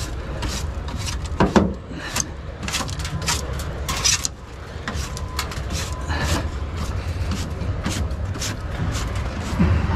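Broom sweeping: a string of quick, irregular scraping strokes over a steady low rumble.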